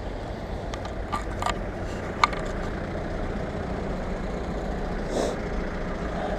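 Car engines running in slow street traffic, a steady low rumble close by, with a few light clicks in the first couple of seconds.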